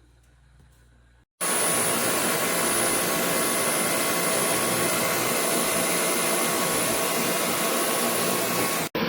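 Dyson V11 cordless stick vacuum switched on and running: a steady, loud rush of air with a thin high whine, starting abruptly about a second in and breaking off for an instant near the end.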